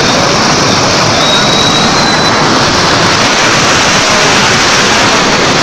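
Steady, loud rush of turbulent water, a dense even noise with no breaks.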